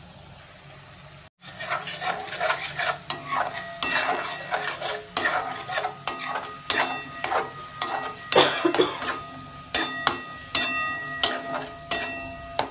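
Metal slotted spatula scraping and clanking against a metal kadhai in quick, irregular strokes, beginning about a second and a half in, the pan ringing with each hit. The spice and onion paste is being stirred and fried down (bhuna) in oil.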